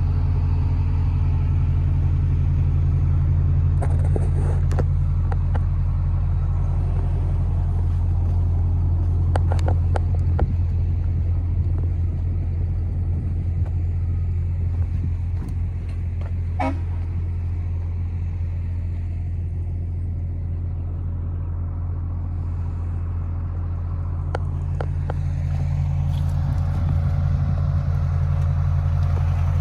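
A large engine runs steadily with a constant low drone, while knocks and clatter come and go over it. A brief high squeak sounds a little past halfway.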